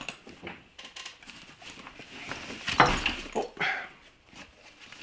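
Black fabric range bag being lifted by its strap and turned around on a table: rustling nylon and small clicks, with a thump about three seconds in.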